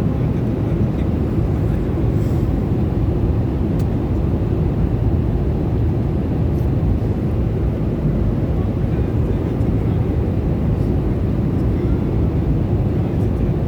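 Steady, low in-flight cabin noise of a passenger airliner: engine and airflow noise heard from inside the cabin.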